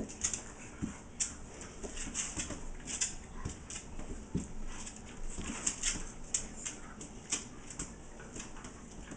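A miniature pinscher–Jack Russell cross puppy and a young cat play-fighting on a tile floor: irregular scuffling, with quick clicks of claws and paws on the tiles.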